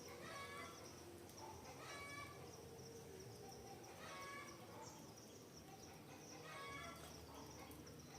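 Faint forest ambience: a bird gives a short call again and again, roughly every two seconds, over a steady high-pitched insect chorus.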